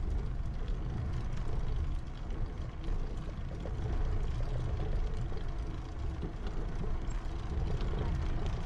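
Steady low rumble of road noise.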